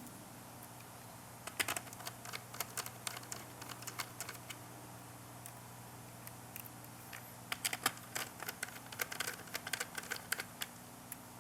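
Small screws being driven into a laptop motherboard with a precision hand screwdriver: quick light clicks and ticks of the bit and screws, in two spells starting about a second and a half in and again about halfway through, over a faint steady hum.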